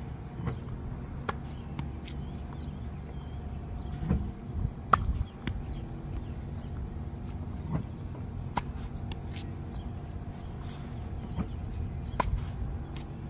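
A tennis ball being struck with a racket during volley practice: a handful of sharp pops at irregular intervals, the loudest about five seconds in, over a steady low hum.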